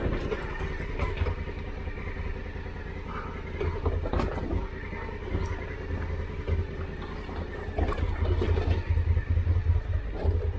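Honda Africa Twin CRF1000L's parallel-twin engine running at low revs on a steep, rocky gravel descent, with the clatter and knocks of loose stones under the tyres. The rumble and knocking grow louder about eight seconds in.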